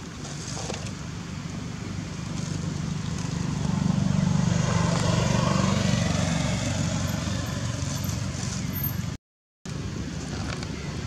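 A motor engine passing by: a low hum that swells to its loudest about halfway through and then fades. The sound cuts out completely for about half a second near the end.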